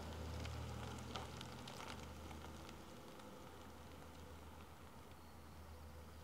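Dodge Charger police car pulling slowly away: a faint low engine rumble that fades over the first three seconds, with a few light clicks about a second in.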